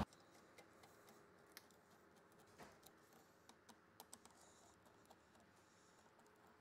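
Near silence with a few faint, scattered clicks from a nut driver loosening stainless steel hose clamps on a suction line hose.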